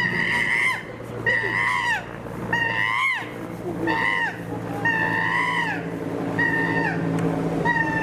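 An animal calling over and over: about seven high, clear calls, each holding its pitch and then dropping away at the end.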